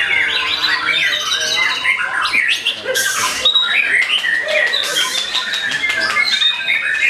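White-rumped shama singing a rapid, varied song of whistles, fast trills and sliding notes, broken by two short harsh rasping bursts about three and five seconds in.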